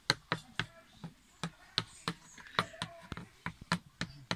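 Ceramic coffee mug being walked across a plastic table by fingers inside it, its base knocking on the tabletop in quick, irregular taps, about ten in all.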